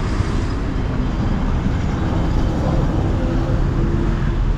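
Motor vehicle moving, a steady low rumble of engine and road noise.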